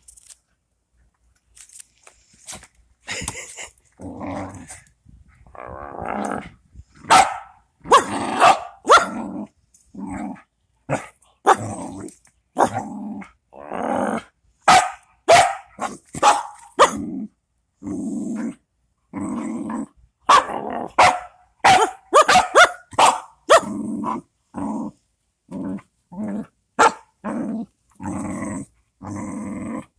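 A dog growling in repeated bursts while tugging on a rope toy in play, with short sharp barks mixed in; it starts a couple of seconds in and keeps going.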